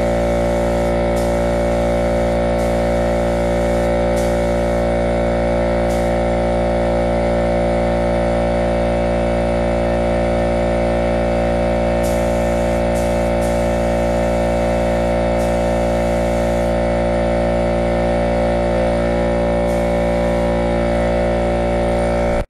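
Portable electric air compressor running steadily with a loud, even motor hum, feeding a paint spray gun. The gun's air hiss starts and stops several times as the trigger is pulled and released.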